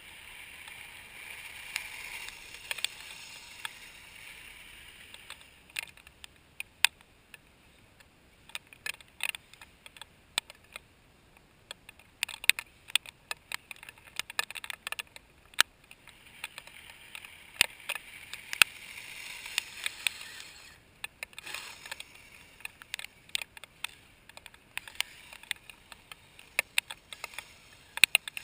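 Kyosho Blizzard radio-controlled snowcat driving on an icy freezing-rain crust: its electric drive whirs in two stretches, near the start and again past the middle, while its tracks give off many sharp, irregular clicks and cracks as they slip on the ice.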